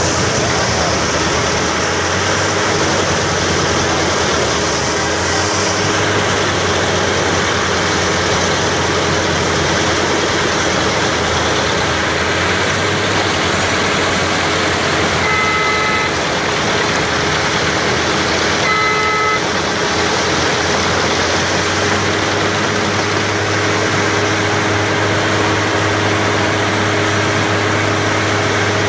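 A machine running steadily, a continuous mechanical noise with a low hum. Two short beeps, each two tones at once, sound about halfway through and again about three seconds later.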